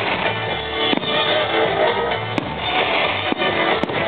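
Rock music with guitar and drums playing steadily, with a few sharp cracks of firework shells bursting scattered through it.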